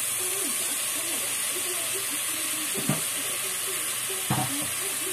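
Shrimp curry masala frying in a pot with a steady sizzling hiss. A spatula knocks against the pot twice, about three and four and a half seconds in.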